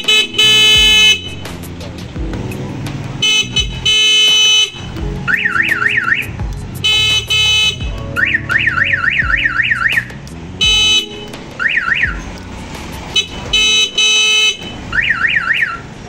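A1122 mini electronic siren on a motorcycle, switched on and off in short bursts from a handlebar button. It gives loud blasts of a steady horn-like tone in turn with runs of a fast yelping up-and-down wail, about five sweeps a second.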